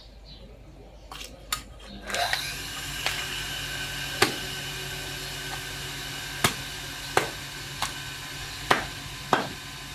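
Cleaver chopping through a large carp on a chopping block: about six sharp strikes in the second half, a second or so apart. About two seconds in, a steady machine hum with a faint whine starts and keeps running underneath.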